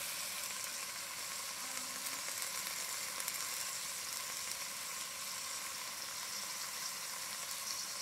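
Oxtails with chopped peppers and onions sizzling steadily in a hot pot as they sear.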